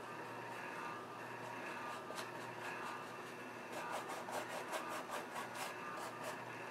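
Flat paintbrush scrubbing acrylic paint onto a canvas: a run of short scratchy strokes, about four a second, from about halfway through to near the end, over a steady low hum.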